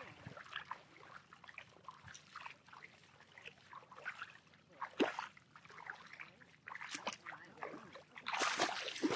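Feet splashing and sloshing through shallow floodwater in a run of wading strides, with a louder, longer splash near the end.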